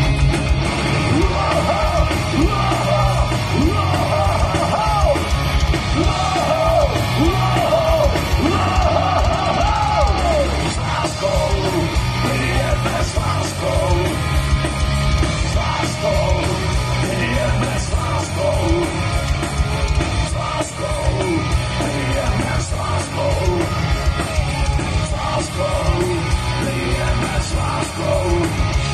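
Live heavy rock band playing loud through an open-air stage PA, with distorted guitars, drums and a shouted lead vocal that is strongest for roughly the first ten seconds.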